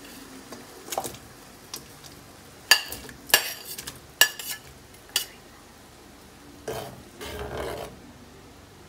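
A utensil scraping and tapping against a plate, a string of sharp clicks, as sliced onion, tomato and ginger are pushed off it into a wok of water; near the end, a spatula stirring the vegetables around in the water in the wok.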